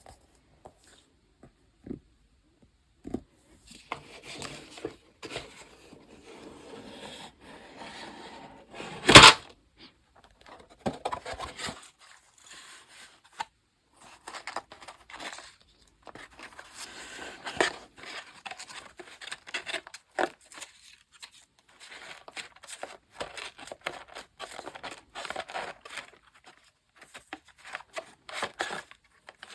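Paper craft materials being handled on a desk: rustling, crinkling and small clicks, with one loud tear about nine seconds in.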